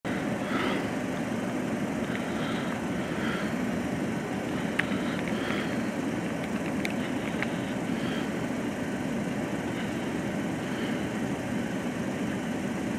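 A vehicle engine idling with a steady low rumble, with a few faint clicks.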